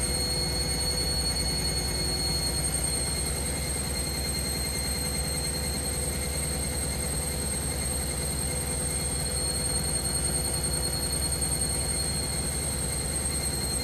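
Washing machine running: a steady low rumble under a constant high-pitched whine.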